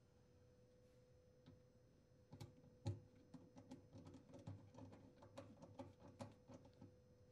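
Faint handling noise: a scatter of small clicks and knocks, the loudest about three seconds in, as a dishwasher drain hose is fed through the cabinet and fitted to the sink drain. A faint steady hum lies underneath.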